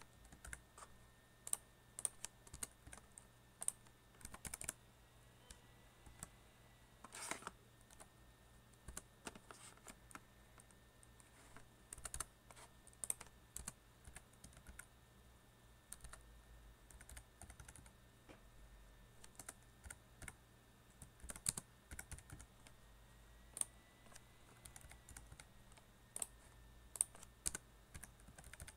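Computer keyboard being typed on: quiet, irregular keystroke clicks in quick runs with short pauses between them, over a faint steady low hum.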